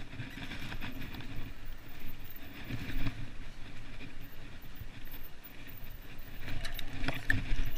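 Mountain bike descending a rough dirt trail: tyres rumbling over the ground and the bike rattling over bumps, with a run of sharp clacks near the end.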